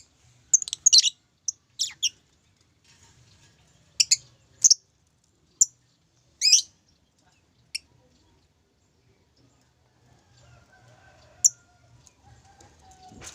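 Pet lovebird giving short, sharp, high-pitched chirps, a quick run of them in the first eight seconds, then a pause and one more chirp near the end.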